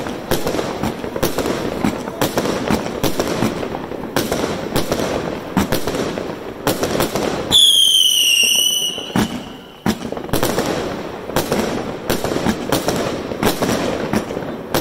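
Aerial fireworks bursting overhead in quick succession, a dense run of cracks and pops. A little over seven seconds in, a firework's shrill whistle sounds for about a second and a half, dipping slightly in pitch before it cuts off. The whistle is the loudest sound.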